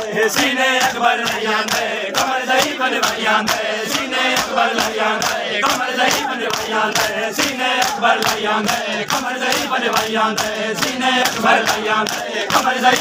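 Crowd of men chanting a mourning noha in unison, over the sharp slaps of hands beating on bare chests (matam) in a fast, even rhythm.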